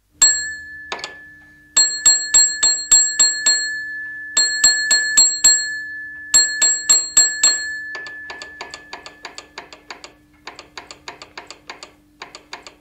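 A small metal bell struck rapidly in groups of several strokes, its ring hanging on between strikes; from about 8 s in it gives way to runs of quicker, lighter clicks without the ring.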